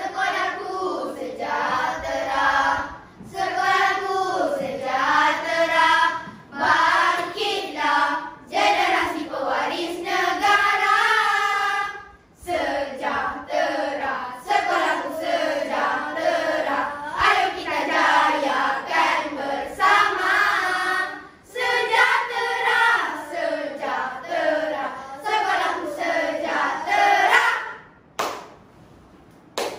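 A children's choir singing together in unison, in phrases broken by short pauses.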